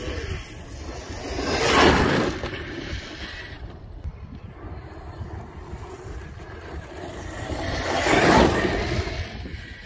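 A large RC monster truck speeding past twice on loose sand: a swelling rush of tyre and drivetrain noise about two seconds in, and again near the end. Wind rumbles on the microphone throughout.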